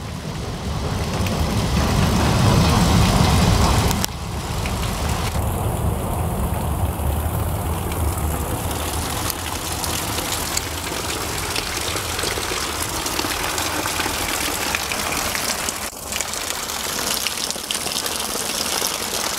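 Rainwater runoff gushing and splashing over rubble and gravel in the rain, a steady rushing noise. A louder low rumble lies under it at first and cuts off suddenly about four seconds in.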